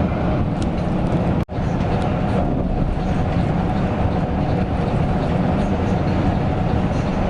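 Mercedes-Benz OC 500 RF 2542 coach under way: steady engine drone and road noise. The sound cuts out for a split second about one and a half seconds in.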